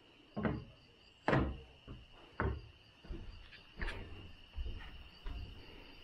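A series of dull thumps, roughly one a second and the loudest about a second in, over a steady high chirring of insects.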